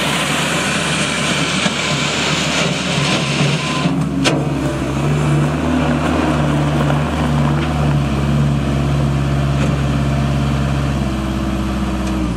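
New Holland L170 skid steer loader's diesel engine running. For the first few seconds there is a loud rushing noise over the engine, then a sharp knock, after which the engine runs at a steady pitch.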